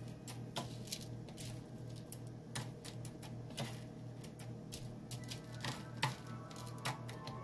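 Metal spoon clicking and scraping against a plastic bowl as a chocolate-dipped strawberry is turned in sprinkles, in irregular taps, over a steady low hum.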